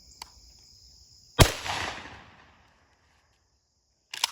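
A single 20-gauge shotgun shot, a Federal 2 3/4 inch shell, about a second and a half in, its echo dying away over about a second. Crickets chirp steadily in the background, and a short clatter comes near the end.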